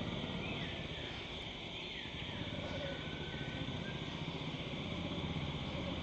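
Outdoor field ambience: a steady low rumble with faint, thin bird whistles in the background.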